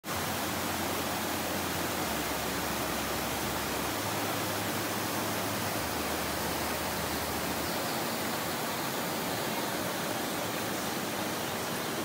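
Small waterfall cascading over rocks into a stream pool: a steady rush of water.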